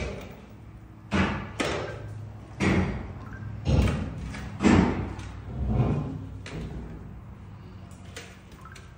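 A series of heavy knocks and thuds, about seven at uneven intervals, each with a short ringing tail. The loudest comes near the middle, and they stop a couple of seconds before the end.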